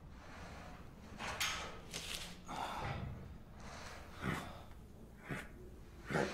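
A series of short, breathy snorts and exhales, about six of them at irregular intervals a second or so apart.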